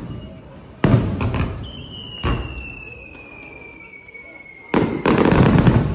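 Fireworks display with sharp bangs of bursting shells about a second in and a little after two seconds, then a rapid run of bangs and crackles near the end, the loudest part. A long high whistle slides slowly down in pitch between the bangs.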